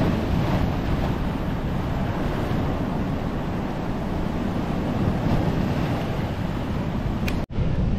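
Ocean surf breaking and washing over rocky shoreline in a continuous rush, with wind buffeting the microphone. The sound breaks off abruptly near the end.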